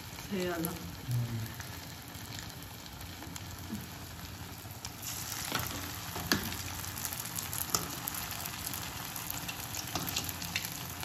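Potato koftas frying in hot oil in a kadai: a steady sizzle that grows brighter and a little louder about five seconds in, with a few sharp clicks.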